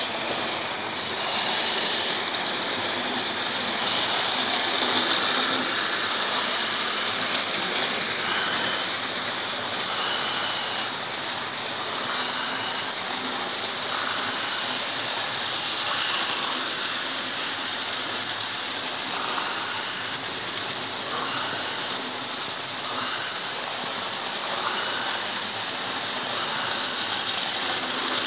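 Several electric model trains running at once on a layout: a steady whir of small motors and wheels on the track.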